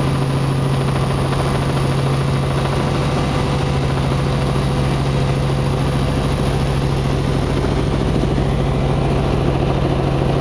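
Helicopter engine and rotor noise heard inside the cabin in flight: a loud, steady drone with a strong low hum and a fast pulsing underneath.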